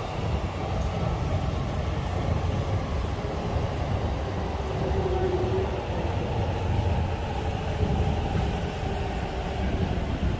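Steady low rumble of passing vehicles in a city street, with no single event standing out.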